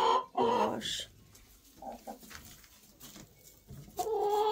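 Hen calling loudly in long, drawn-out squawks, then a couple of seconds of soft clucks before the loud calling starts again near the end. It is the fussing of a hen in the nest box, which the keeper takes for a hen wanting to lay an egg.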